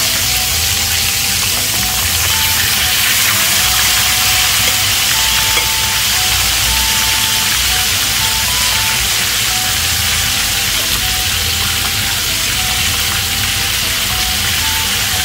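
Chicken thighs frying in hot oil in an enameled cast-iron pot: a steady sizzle as the skin sears. Faint background music plays under it.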